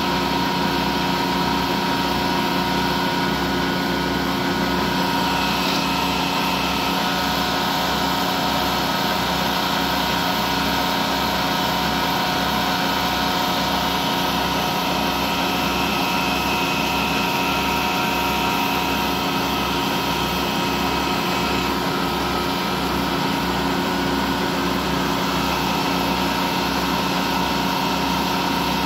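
Vertical lathe running steadily while its tool cuts a groove in a large metal ring. A constant machine hum holds several fixed tones over a regular low throb. A higher whine joins from about six seconds in until about twenty-two seconds.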